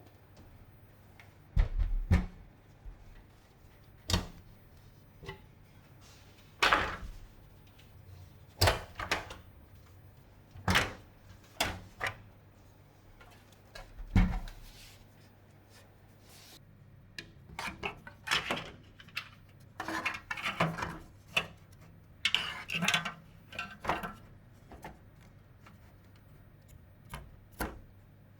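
PC parts being handled and fitted by hand. Separate knocks and light thuds come every couple of seconds through the first half, then a busier stretch of clicks, scrapes and rubbing.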